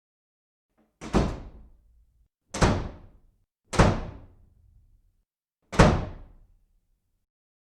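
Four loud, sudden thuds, coming about a second to two seconds apart, each dying away within about half a second.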